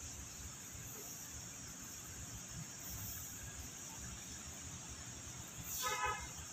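Quiet outdoor night ambience: a steady high-pitched hiss with faint low rumble, and a brief pitched squeal or call near the end.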